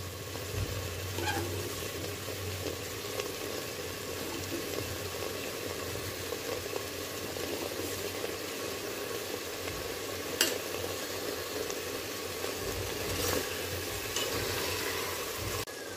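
Chicken pieces in masala paste sizzling steadily as they fry in oil in a pot, with one sharp click about ten seconds in.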